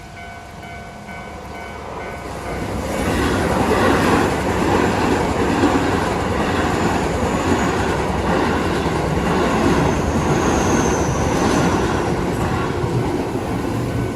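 Keio Line electric train passing over a level crossing: the steady tones of the crossing warning bell are heard at first, then the train grows loud about three seconds in and stays loud, wheels running over the rails. Two brief high squeals from the wheels come in the middle and later on.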